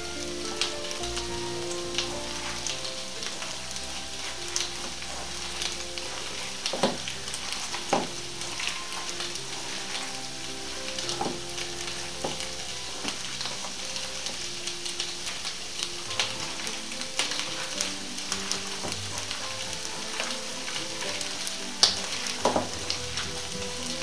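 Sliced potatoes and onions frying in oil in a pan, a steady sizzle, with scattered sharp clicks and knocks of kitchen utensils.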